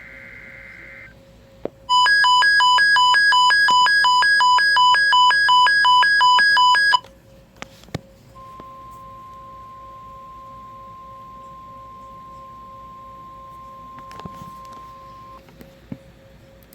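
NOAA Weather Radio emergency alert tones: the end of a screeching SAME digital data burst, then about five seconds of loud pulsing, alternating alarm beeps, then the steady 1050 Hz weather radio warning tone held for about seven seconds. This marks the start of a severe thunderstorm watch broadcast. A faint steady hum sits underneath.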